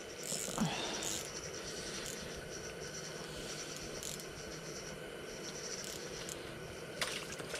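Small ice-fishing spinning reel being cranked by hand to wind in a hooked fish. It makes a faint, fast ticking over the first couple of seconds, with a few light clicks of handling.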